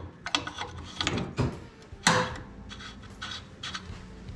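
Scattered knocks and clatters of hard parts and tools being handled, the loudest about two seconds in.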